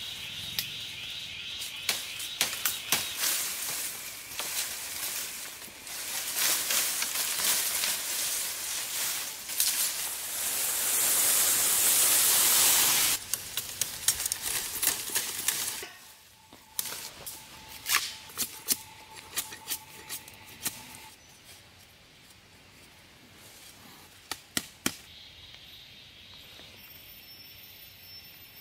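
Bamboo foliage rustling and crackling, with sharp snaps, as bamboo stems are pulled and cut; loudest for a few seconds in the middle. After an abrupt drop, quieter scattered cracks and scrapes follow as a knife splits and shaves a thin bamboo strip.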